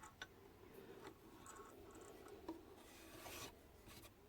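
Near silence with faint rubbing and a few light ticks of hands handling parts of a sewing machine, a little louder about three seconds in.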